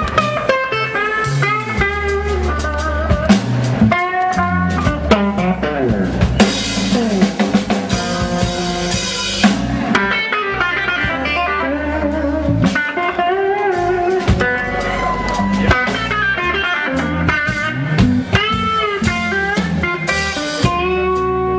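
Live electric blues guitar solo over a drum kit, the guitar playing bent, wavering notes.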